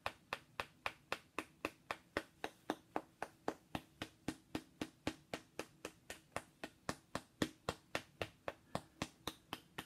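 Rapid, even tapping of a metal-tipped hand-held stick against a small figurine, about four sharp taps a second.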